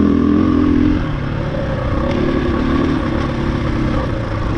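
KTM 500 EXC-F dirt bike's single-cylinder four-stroke engine pulling up a loose gravel hill, the throttle opened and eased in turn: strong for the first second, backing off, then pulling again about two seconds in before easing near the end.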